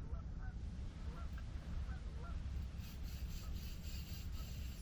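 Faint, repeated honking calls of distant geese, over a steady low rumble. From about three seconds in, a fishing reel is cranked with a rapid, fine rasping click as the angler reels in on a light bite.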